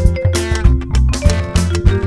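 Live band music without vocals: guitar lines over a steady bass line and a drum beat, an upbeat African dance-band groove.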